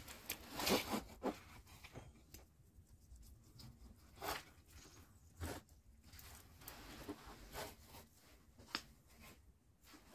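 Hands wiring a lemon-tree bonsai: short, irregular crinkling, scraping and clicking noises as the wire and leafy branches are handled, loudest about a second in.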